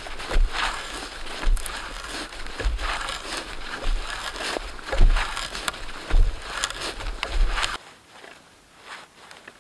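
Hand auger boring into a frozen log: irregular crunching and creaking as the spiral bit cuts the wood, with uneven low knocks. It stops about eight seconds in, leaving only faint rustling.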